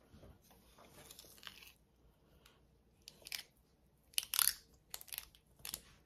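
Knife scraping peanut butter out of a bowl and smearing it onto a dry pine cone: a few short, scratchy scrapes from about three seconds in, the loudest a little past four seconds.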